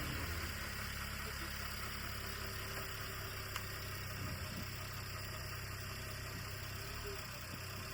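VW Jetta's turbocharged TSI four-cylinder engine idling steadily, run for a few minutes after a fresh oil and filter change to circulate the new oil before the level is checked.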